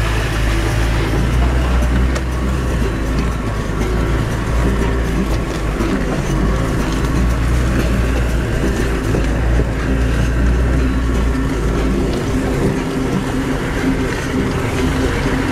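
Land Rover Defender 110 driving off-road, heard from inside the cab: a steady engine drone with a deep rumble, mixed with scattered knocks and rattles from the body over the rough track. The deep rumble eases about twelve seconds in.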